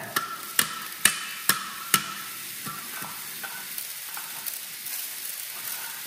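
Dry groats pouring from a homemade silo into a plastic toy tipping trailer, a steady hiss of falling grains. Four sharp knocks about half a second apart come in the first two seconds.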